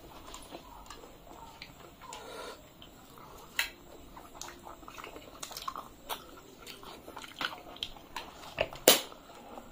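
Close-miked chewing and mouth sounds of people eating luchi, the soft fried puffed bread, with scattered small clicks and a sharper click near the end.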